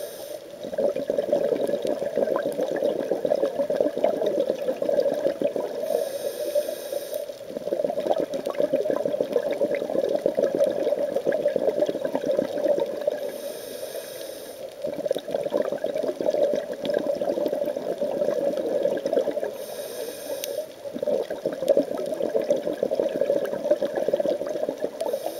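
Scuba diver breathing through a regulator underwater: long stretches of exhaled bubbles, broken about every six to seven seconds by a short inhale hiss.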